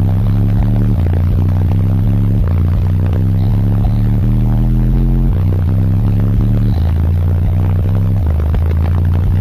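Bass-heavy music played at extreme volume through a car audio system of six Resilient Sounds Platinum 15-inch subwoofers. Deep bass notes step up and down in pitch and drown out everything else.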